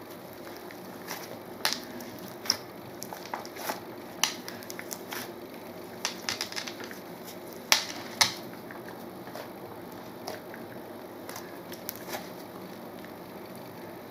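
Hands kneading, folding and squeezing slime mixed with clay, giving irregular sticky pops and crackles. The two loudest pops come close together a little past halfway.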